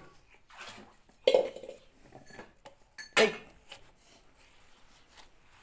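Small kitchen knife cutting into a watermelon's rind: a few short, sharp knocks and scrapes of the blade, the loudest about a second in and again about three seconds in.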